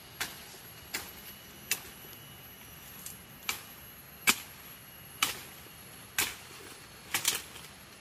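A series of sharp snaps or knocks, roughly one a second and unevenly spaced, with a quick double near the end, over a quiet background with a faint steady high whine.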